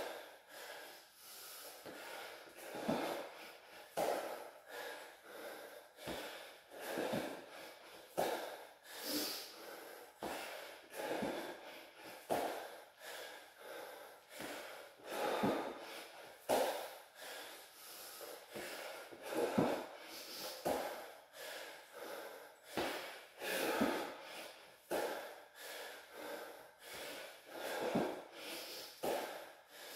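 Heavy, rhythmic breathing of a man exercising hard through burpees and squats, a forceful breath every second or two. Now and then a soft thud of bare feet or hands landing on a rubber floor mat.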